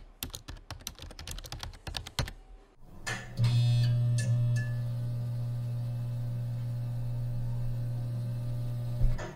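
Typing on a computer keyboard, a quick run of key clicks for about two and a half seconds. Then an intro logo sting: a swell with a couple of short high blips over a steady low hum, which cuts off near the end.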